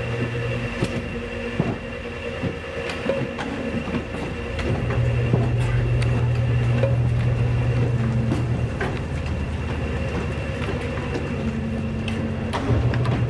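Industrial guillotine paper cutter running with a steady hum that swells louder for a few seconds in the middle, with irregular sharp knocks and clacks as stacks are slid across the table and cut.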